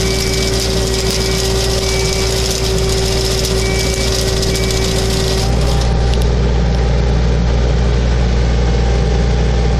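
Caterpillar 301 mini excavator's diesel engine and hydraulics running steadily while its hedge-trimmer attachment works. About five and a half seconds in, a steady humming tone stops and the low engine sound grows louder.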